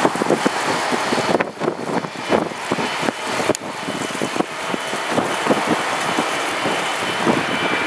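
Wind buffeting the microphone in irregular gusts over the steady rush of a distant Airbus A320 airliner's jet engines on approach.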